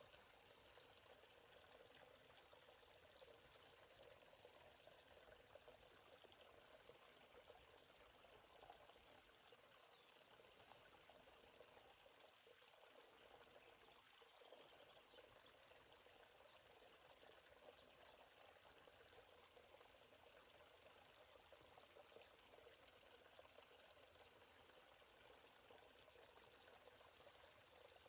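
A steady, high-pitched chorus of insects chirring without a break, over a faint, even murmur of a forest stream.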